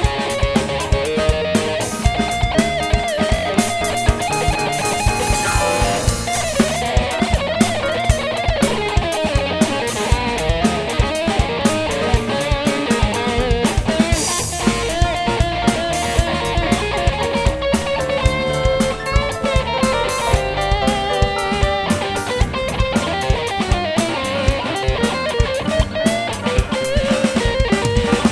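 Instrumental music with electric guitar playing a melody over a drum kit keeping a steady beat.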